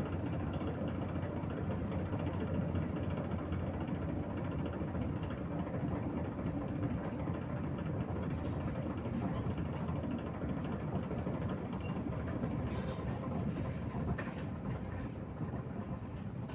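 MAZ 103 city bus in motion, heard from inside the passenger cabin: a steady rumble of engine and road noise. There are a few clicks and rattles in the second half.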